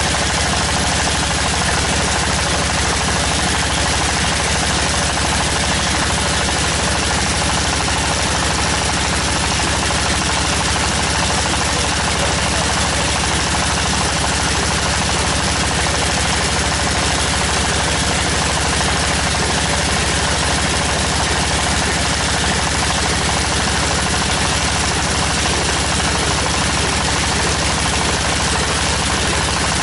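Tractor diesel engine of a tractor-mounted water well drilling rig, running steadily at a constant speed with a rapid, even beat.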